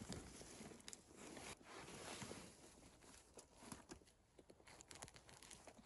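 Faint rustling and crackling of dry leaves and moss as a gloved hand picks mushrooms from the forest floor, with scattered small clicks and snaps.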